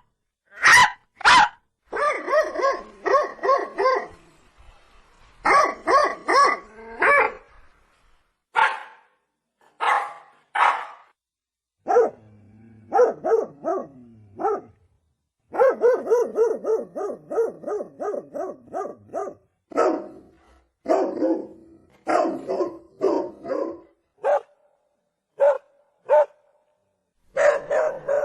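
Dog barking in bouts: loud single barks and quick runs of several barks a second, with short pauses between bouts.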